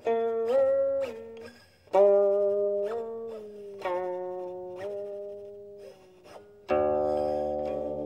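Solo guqin, the Chinese seven-string zither, being played: plucked notes ring on while their pitch slides up and down under the sliding left hand. Near the end a louder, fuller note is struck and rings on, slowly fading.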